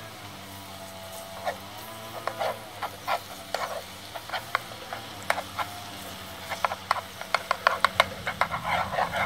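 Minced garlic frying in hot oil in a pan: the oil sizzles with sharp crackles and pops, few at first and growing dense and rapid in the last few seconds.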